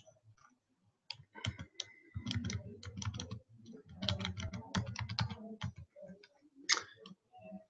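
Typing on a computer keyboard: a quick run of key clicks lasting several seconds, then a single louder click near the end.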